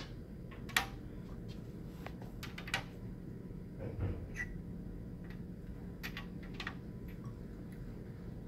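Scattered small clicks and taps of plastic lab tubes, caps and a transfer pipette being handled at a tube rack, over a steady low room hum.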